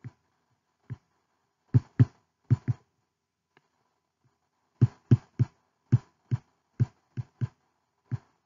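Stylus tapping and knocking on a tablet screen while numbers and units are handwritten: about fifteen irregular dull taps, several in quick pairs.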